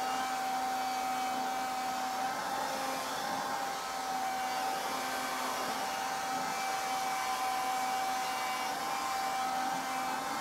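Handheld vacuum cleaner running steadily with a constant whine, its nozzle drawn through a cat's fur.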